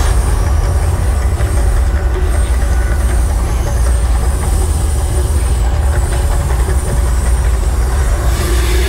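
The Mirage volcano attraction erupting: a loud, deep, continuous rumble that sets in abruptly, with the hissing rush of its gas flame jets over it. The hiss grows louder near the end.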